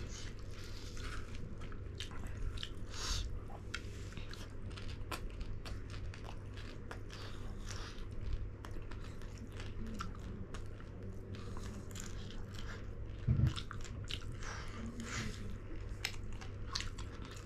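People chewing food, with frequent small crisp crunches and clicks. A short low hum comes about thirteen seconds in.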